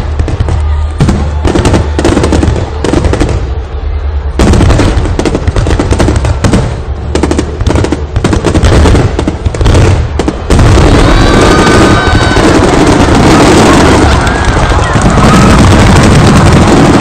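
Fireworks finale barrage: rapid booming shell bursts in quick succession over a heavy rumble. About ten seconds in it merges into a continuous dense crackle and roar.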